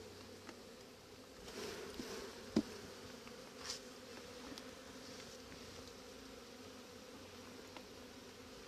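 Honeybees humming steadily from an open, crowded hive. About two and a half seconds in, a sharp knock and some light scraping as a wooden brood frame is worked out of the box.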